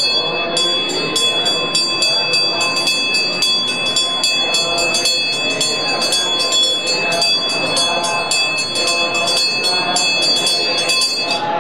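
Temple bell rung rapidly and without a break, several strokes a second, its clear ringing held over voices, then stopping suddenly near the end.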